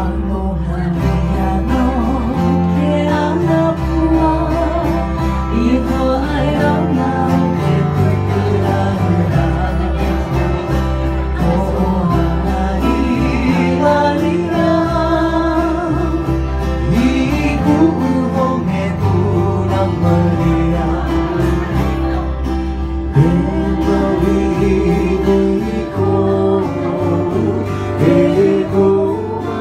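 Live Hawaiian band music, with ukulele and guitar strumming and a voice singing the melody.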